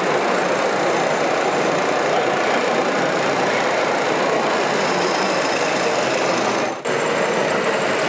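RC scale mobile screening plant running: a steady mechanical clatter and hum from its drives and vibrating screen, broken by a brief drop-out about seven seconds in.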